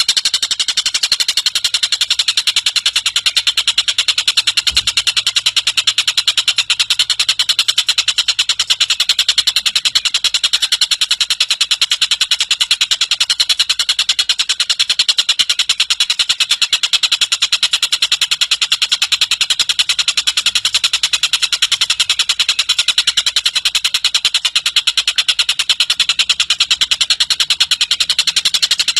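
Tengkek buto, the Javan kingfisher, giving a long, unbroken, rapid chattering call, high-pitched and loud.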